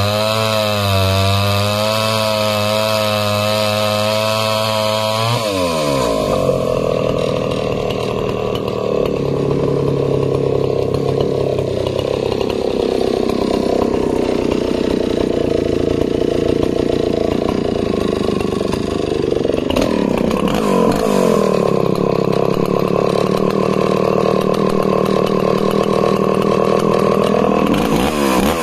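Stihl 041AV chainsaw's 61cc long-stroke two-stroke engine running at full throttle through a cut in a log, its pitch wavering under the load. About five seconds in the revs drop away and the saw runs on at low speed. The revs change again about twenty seconds in and rise near the end.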